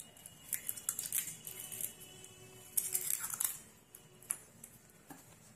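Eggshells cracking and being pulled apart by hand over a plastic mixing bowl: runs of sharp crackles and clicks, strongest about half a second in and again around three seconds in.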